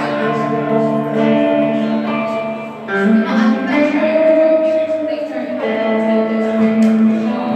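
Hollow-body guitar played live, ringing chords held and changed in a slow blues pattern.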